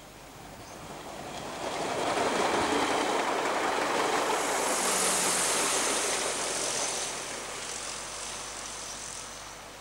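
Diesel railcar passing close by: a rush of wheel-on-rail and running noise that swells over a second or two, is loudest mid-way with a high hiss as the cars go past, then fades as it moves away.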